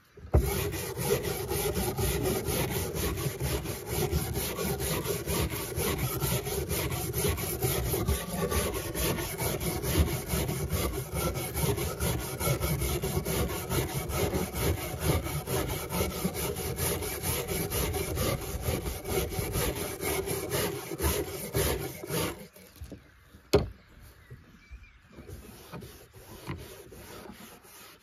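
Steel wire brush scrubbed rapidly back and forth over a rusty hedge-shear blade resting on a wooden plank, scraping off the rust. The scrubbing stops about three-quarters of the way through. A single sharp knock follows, then softer rubbing as the blade is wiped with a paper towel.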